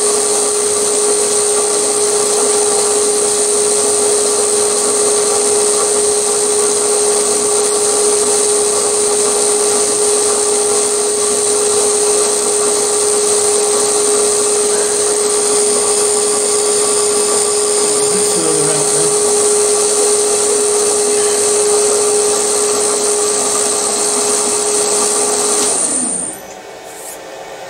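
Milling machine spindle running at steady speed with a hum and a high whine, switched off about 26 seconds in and winding down.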